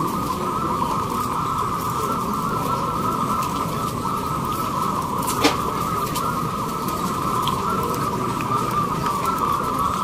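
Many caged zebra doves (perkutut) cooing at once, their calls merging into one continuous chorus, over a low background murmur. One sharp click about halfway through.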